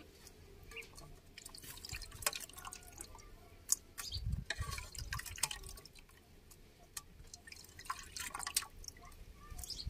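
A hand dipping into a steel pot of water and lifting small fish out, with small splashes and irregular drips of water as the fish are dropped into a metal bowl.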